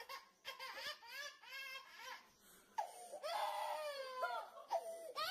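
A toddler crying in short wavering sobs, then a louder, longer wail starting about three seconds in.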